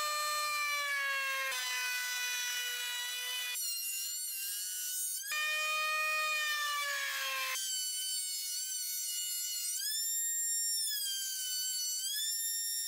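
Table-mounted router running at high speed with a steady whine while a wooden strip is fed past a profile bit. The pitch dips slightly under load and jumps abruptly between a lower and a higher whine a few times.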